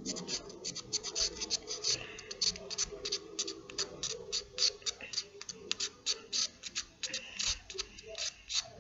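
A stick of soft chalk pastel being scraped by hand into powder, in quick, repeated scratchy strokes, several a second.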